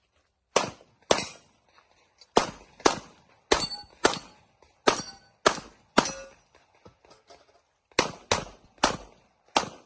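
A handgun firing rapid shots in a practical shooting stage, thirteen in all, mostly in quick pairs about half a second apart, with a pause of about two seconds near the middle. Brief ringing tones follow a few of the shots.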